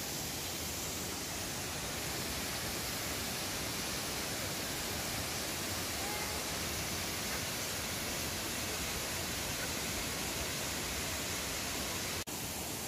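Triberg Waterfalls cascading: a steady, even rushing of falling water. It cuts out for an instant near the end.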